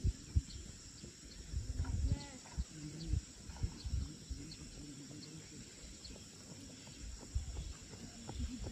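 Running footsteps thudding on grass, fading as the runner moves away and coming back stronger near the end as she heads toward the microphone. Insects chirp faintly in the background.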